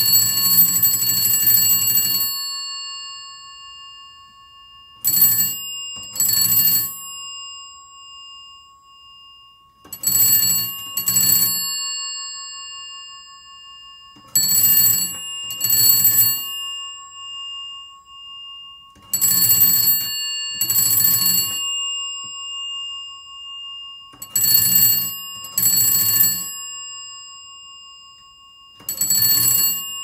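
Bell of a British GPO 322 bakelite rotary telephone ringing in the double-ring pattern. Two short rings come close together, and the pair repeats about every four to five seconds.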